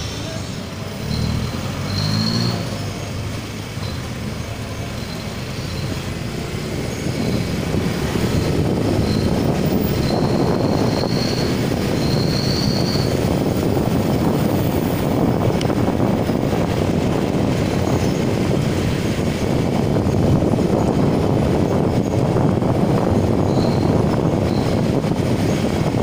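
Wind rushing over a motorcycle rider's headset microphone while riding, a dense low noise that grows louder about seven seconds in and then holds steady. Short high whistling tones come and go in the first half.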